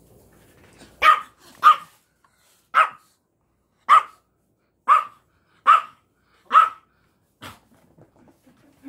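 A small dog barking: seven short, sharp barks less than a second apart, the first two close together, then one fainter bark near the end.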